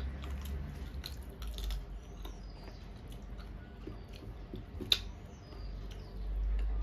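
Eating by hand: fingers mixing and scooping rice and curry on metal plates, with chewing and small wet clicks. One sharp tick on a plate comes about five seconds in.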